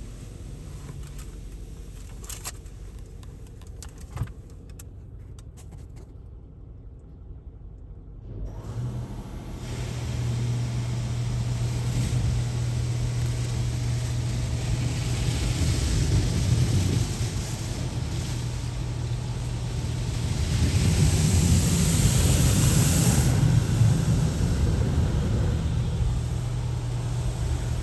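Automatic car wash heard from inside the car: spray rushing over the body and glass. A steady machine hum comes in about eight seconds in and the noise grows louder, with scattered clicks before it.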